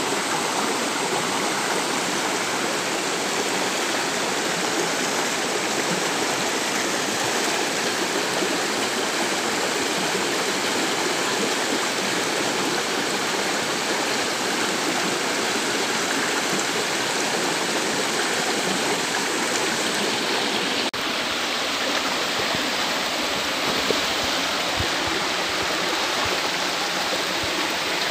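Steady rushing of water flowing in a small rocky stream or ditch, close by. It breaks off for an instant about three-quarters of the way through.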